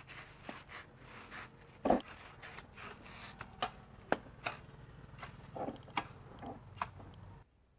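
Long-handled hoe chopping and scraping through weeds and soil in irregular strokes, with one heavier thud about two seconds in.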